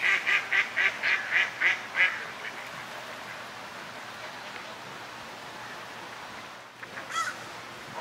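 Mallard ducks quacking: a quick run of about eight loud quacks in the first two seconds, then a single short call about seven seconds in.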